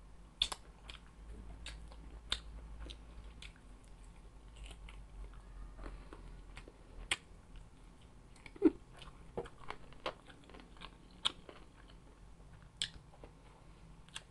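A person biting and chewing crunchy food, with irregular sharp crunches every second or so over quieter chewing.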